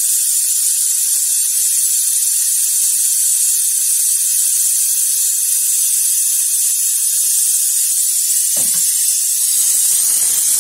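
A loud, steady, high-pitched hiss that starts abruptly and does not change, with a short lower sound about eight and a half seconds in.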